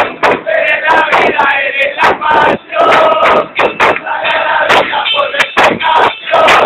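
A crowd of many voices chanting and shouting loudly together, with frequent sharp knocks or claps mixed in.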